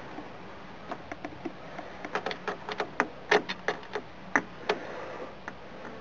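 Quick, irregular clicks and taps of battery terminal hardware being handled and fitted onto a truck battery post, thickest between about two and five seconds in.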